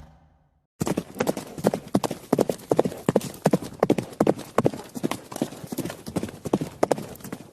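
A rapid, uneven series of sharp clicks or knocks, several a second, starting about a second in after a short silence.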